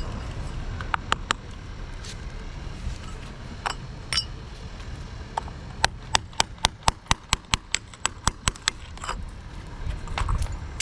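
Sharp metallic clinks of a hand tool tapping on a hard surface: a few scattered taps, then about six seconds in a quick, even run of some fifteen taps at roughly six a second.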